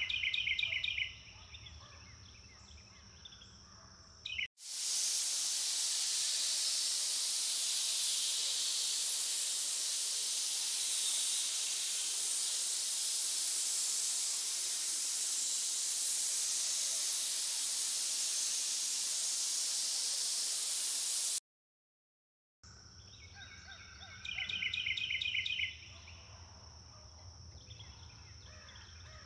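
Rainforest ambience of steady high insect tones with short bird trills, broken by a loud, even, high-pitched hiss that lasts about seventeen seconds and cuts off into a second of silence before the insects and birds return.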